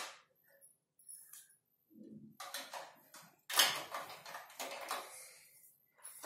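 Plastic toy vehicles and a plastic Paw Patrol toy truck clattering and clicking as they are handled and moved, in a few short bursts, the loudest about three and a half seconds in.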